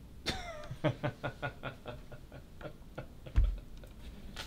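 A man's short, rhythmic chuckle, a quick run of breathy laugh pulses that fades out, followed by a single dull thump about three seconds in.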